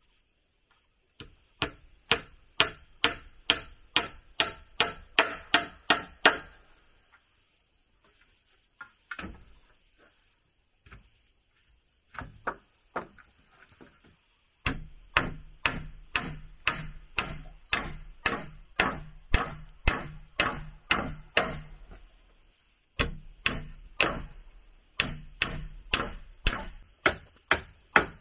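Repeated blows of a hand tool on wood, about three a second, in three runs broken by a few pauses and single strikes.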